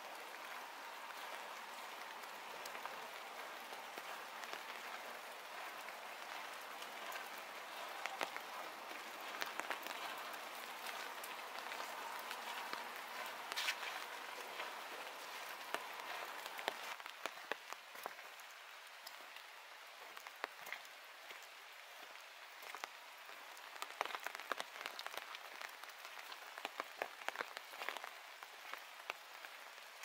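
Rain falling on the leaves of a forest, a steady pattering hiss with many scattered single drips. About halfway through, the hiss thins and the separate drops stand out more.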